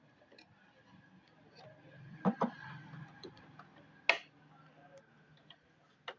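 Computer parts being handled during assembly: scattered light clicks and ticks, with two louder knocks in quick succession a little past two seconds in and a sharp click about four seconds in.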